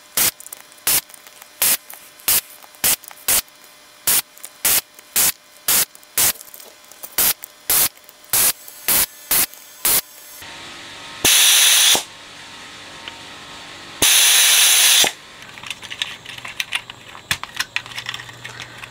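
Compressed-air desoldering gun sucking molten solder off circuit-board joints: a quick run of short hissing puffs, about two a second, then two longer blasts of air about a second each near the middle. Quieter clicks of handling and a low hum follow near the end.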